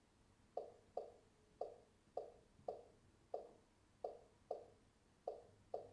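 Silvercrest Monsieur Cuisine smart's touchscreen giving a short, soft pop of feedback at each key tap, about ten in a row at an uneven pace of roughly two a second, as login details are typed on its on-screen keyboard.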